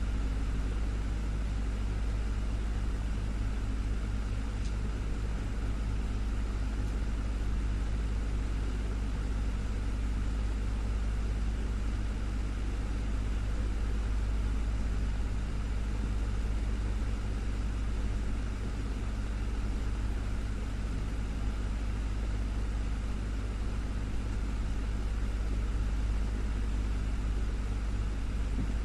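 Desktop fan running steadily, a low motor hum under an even rush of air that holds unchanged throughout.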